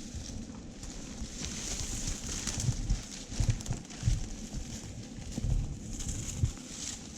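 Footsteps through brush and grass, a few uneven thuds with a light rustle over them.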